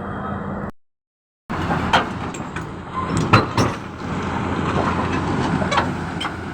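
Backhoe's diesel engine running steadily, with several sharp metal clanks and knocks about two to four seconds in. The sound cuts out completely for under a second about a second in.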